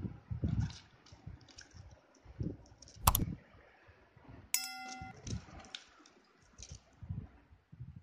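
A budgerigar's beak and claws clicking and tapping on the plastic cage rim and wire bars as it climbs, with soft low bumps and one sharp knock about three seconds in.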